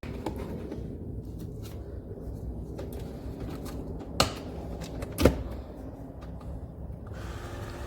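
Clicks and knocks of a single-serve coffee maker being handled, with two sharp clacks about four and five seconds in. A low steady hum starts up near the end.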